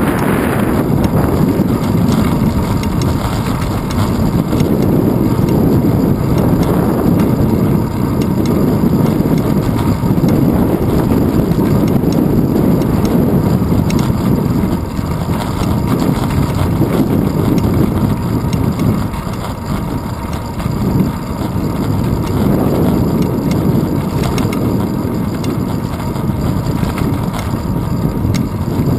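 Wind rushing over the microphone of a handlebar-mounted GoPro Hero 2 on a moving bicycle: a steady low rumble that eases briefly a little past halfway.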